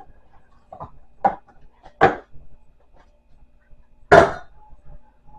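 Kitchenware being handled: four sharp knocks and clatters, the loudest about four seconds in.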